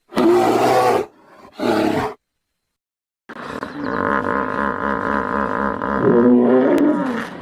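Animal calls: two short calls near the start, each under a second. After a brief gap comes a longer call of about four seconds with a fast, even pulsing beat.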